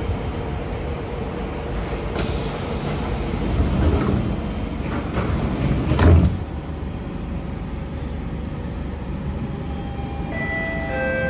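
SMRT C651 metro train running, heard from inside the car, with a steady rumble and a hiss about two seconds in. A single loud clunk comes about six seconds in. Near the end, the Siemens GTO-VVVF traction inverter starts its stepped tones.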